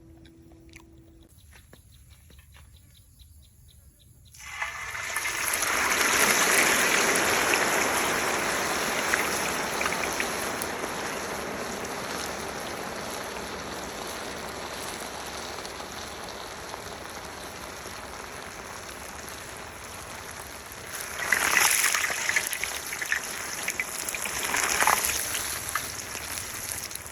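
Sizzling in a hot pan, starting suddenly about four seconds in as the food goes in and slowly dying down, with louder bursts of crackling twice near the end.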